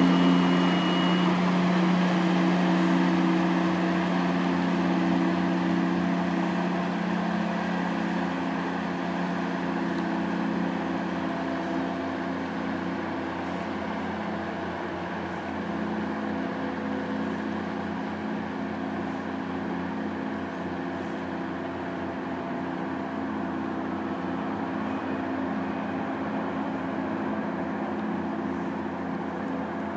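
Engines of the catamaran marine environment vessel Hakuryu running as it passes close and moves away: a steady low hum that fades over the first dozen seconds, then holds at a lower level.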